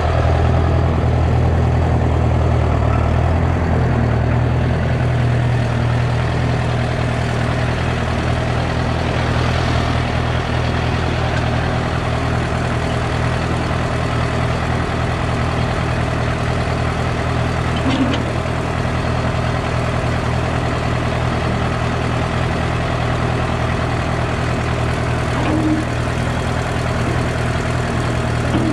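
Diesel engine of heavy work machinery running steadily, its low note shifting slightly about three seconds in, with a couple of faint knocks.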